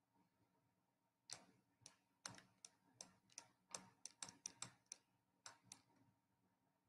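A quick, irregular run of about fourteen faint clicks, starting about a second in and stopping a second before the end, against near silence.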